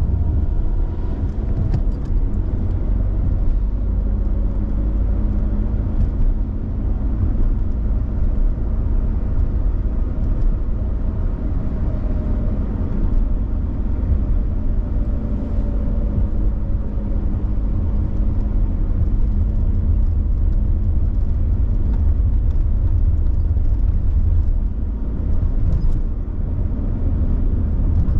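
Suzuki Lapin driving at road speed: a steady low rumble of tyres and drivetrain with a faint steady droning hum.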